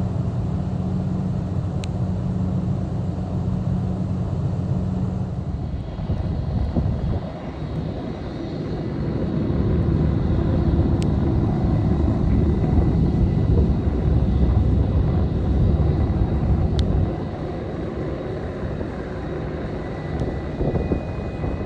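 Jet airliner engines at an airport. First a distant jet's steady rumble on its landing roll, then the four engines of a Lufthansa Boeing 747 taxiing close by, louder through the middle, and after a drop near the end, the quieter run of a taxiing Airbus A320-family jet.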